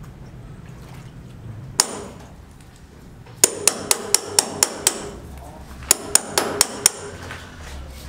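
Hammer blows with a metallic ring, chipping into a concrete wall, most likely a hammer on a chisel: one strike, then a quick run of about seven at roughly four a second, a short pause, and about five more.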